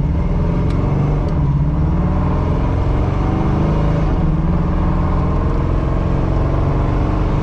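1985 Oldsmobile Cutlass Supreme engine, with headers and a new carburetor, accelerating hard at wide-open throttle: the pitch climbs, falls back about four seconds in as the transmission shifts up, then climbs again.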